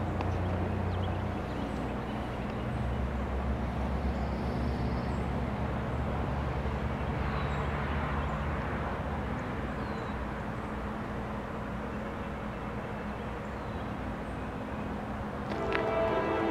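Low, steady diesel drone of approaching GE ES44AH freight locomotives with GEVO-12 V12 engines, stepping in pitch a couple of times in the first few seconds. Near the end the lead locomotive's air horn starts to blow.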